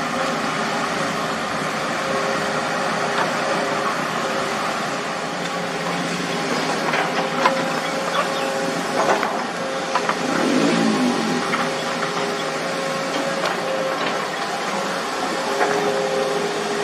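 Diesel engines of excavators and a dump truck running steadily, with a few sharp knocks or clanks about seven to nine seconds in and an engine briefly rising and falling in pitch around ten seconds in.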